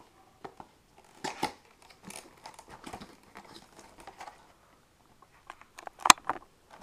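Cardboard retail box being opened by hand, its inner tray sliding out: scattered rustling, scraping and light clicks of the packaging, with one sharper snap about six seconds in.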